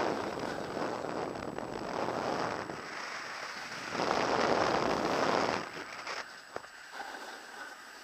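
Skis scraping over packed, groomed snow, swelling and fading three times with the turns, mixed with wind rushing on the camera microphone; quieter for the last two seconds, with a few small clicks.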